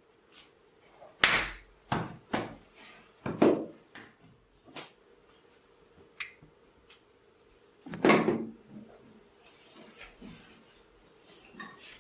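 Hand and tool contact of a head and shoulder massage: an irregular run of sharp taps and short rubbing strokes. The loudest come just over a second in and around eight seconds in, with softer ones between and toward the end.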